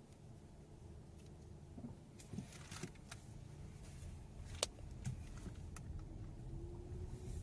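Car being driven over a rough road: a steady low road rumble with a few sharp knocks and clunks, the sharpest just past the middle. The knocking is the noise the uploader puts down to a bad engine mount on a Hyundai Elantra.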